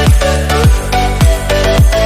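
Electronic dance music with a steady kick drum about twice a second under held synth chords, without vocals.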